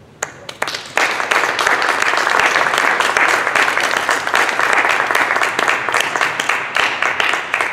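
Small audience applauding: a few scattered claps at first, then steady clapping from about a second in.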